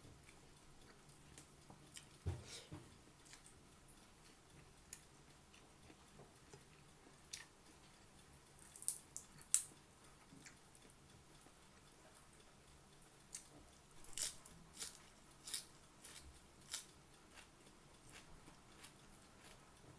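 Faint eating sounds of someone biting and chewing fresh dill and green onions by hand: scattered sharp crunches and mouth clicks, a couple about nine seconds in and a quick run of them from about fourteen to seventeen seconds.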